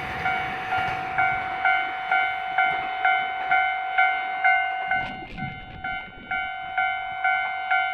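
Japanese railway level-crossing warning bell ringing, an electronic ding repeating steadily a little over twice a second, signalling that a train is approaching. A brief clatter with a low rumble comes about five seconds in.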